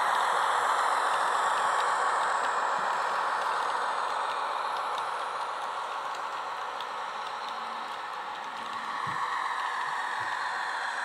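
HO scale NSW 44 class Alco diesel model's factory-fitted ESU LokSound DCC sound playing a running Alco diesel engine through the model's small onboard speaker, mixed with the light rattle of the train rolling over the track. The sound fades slowly, then grows louder again about nine seconds in.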